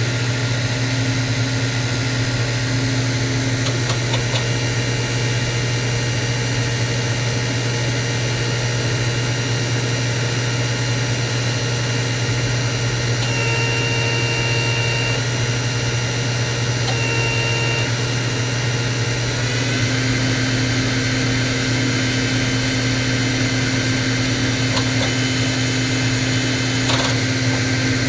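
A machine running steadily with a constant hum and a high whine; the tones shift about twenty seconds in.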